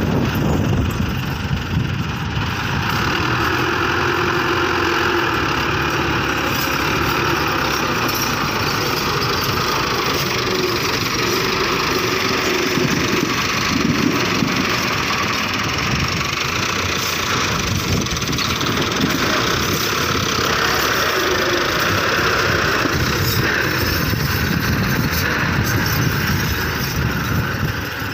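Fiat 640 tractor's diesel engine running steadily under load as it works loose soil with a rear blade.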